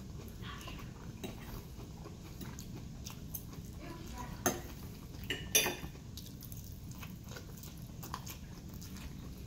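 Someone chewing a mouthful of salad and eggs while a knife and fork clink and scrape on a ceramic plate, with two sharper clinks about halfway through. A low steady hum sits underneath.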